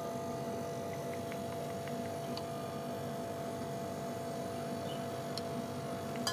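Split air conditioner running with a steady hum and a few faint ticks while refrigerant is being charged into it.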